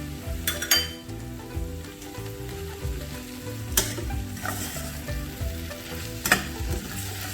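Spoon stirring and scraping in a pan of sizzling bitter gourd curry as the ground roasted coconut is mixed in, with a few sharp clinks of the spoon against the pan.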